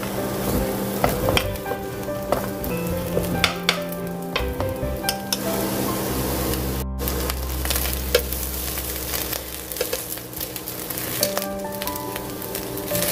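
Eggplant chunks sizzling as they fry in hot oil in a pan, with a spatula knocking against the pan now and then as the pieces are turned.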